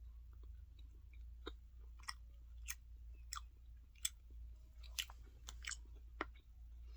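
A person chewing a small sour candy, with faint irregular crunches roughly every half second to second.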